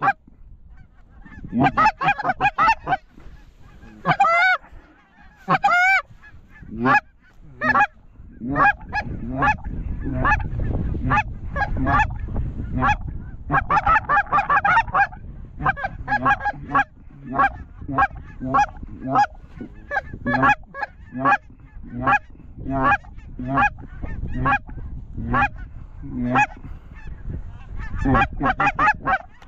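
A flock of geese calling continuously, short honks and yelps several a second, with two high, wavering trilled calls about four and six seconds in. The birds are taken for white-fronted geese (specklebellies). A low rumble runs under the calls through the middle.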